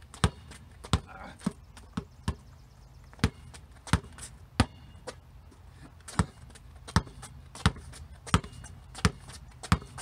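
Basketball bounced on a concrete driveway in a between-the-legs scissor dribble, one sharp bounce about every three-quarters of a second, with a longer gap about halfway through while the ball is held.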